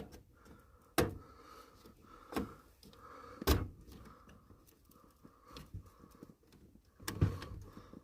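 A RAM stick being pushed into a motherboard memory slot: a few sharp clicks and knocks of plastic and metal, the loudest about three and a half seconds in, with quieter handling between them.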